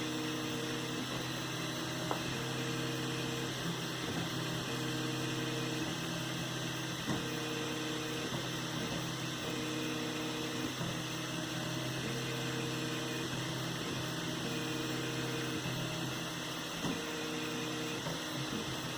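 3D printer running a print: its stepper motors sing in pitched tones that switch on and off about once a second as the head moves, over a steady fan hum, with a few faint clicks.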